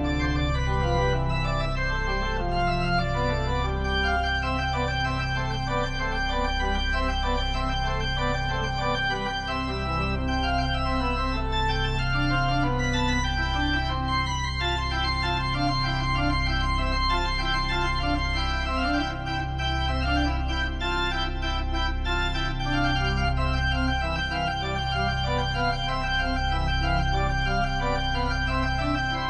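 Organ music: full, sustained chords over a bass line that moves every second or two.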